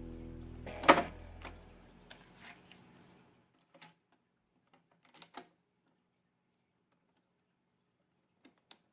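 Music fading out over the first few seconds. A sharp, loud click comes about a second in, followed by a scattered handful of light clicks and taps.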